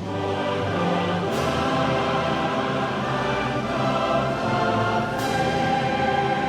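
Background music: a choir singing held chords over orchestra, with swells about a second in and again about five seconds in.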